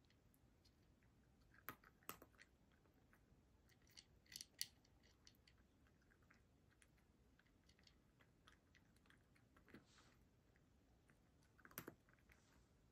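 A cat eating dry kibble from a bowl: faint, scattered crunches and clicks, with small clusters about four seconds in and near the end.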